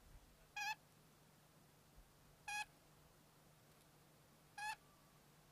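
Caged parrot calling: three short, high, slightly warbling chirps about two seconds apart.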